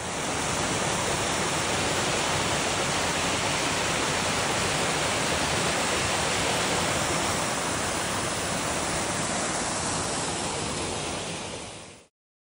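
Small waterfall cascading over rock ledges into a pool: a steady rush of falling water that fades out near the end.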